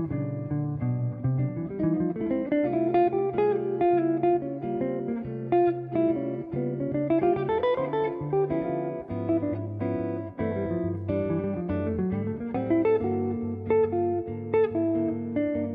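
Instrumental jazz passage led by an archtop guitar, with plucked chords and single-note lines over a steady low bass note, and one rising gliding note about halfway through.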